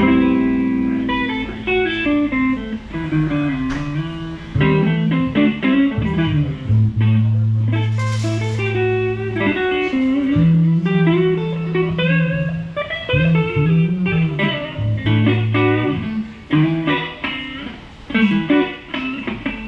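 Electric guitar played through an amplifier during a sound check: a held chord at the start, then quick runs of single notes with long held low notes in the middle.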